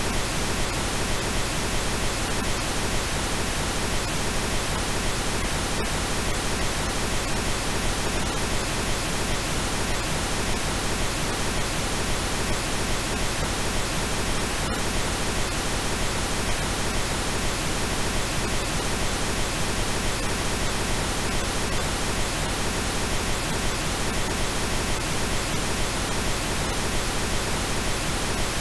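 Steady, unchanging pink noise, generated as an audio track and spread evenly across the whole range from low rumble to high hiss.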